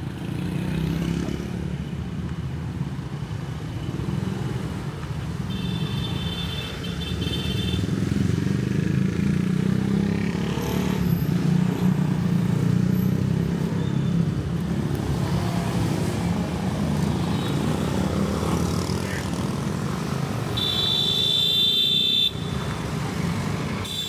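City street traffic: cars and motorcycles passing with a steady low engine and tyre rumble. A high tone sounds twice, for about two seconds each, about six seconds in and again near the end.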